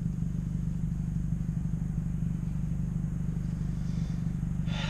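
2017 Honda Civic's four-cylinder engine running steadily, a low even drone heard from inside the cabin. A brief rustle comes near the end.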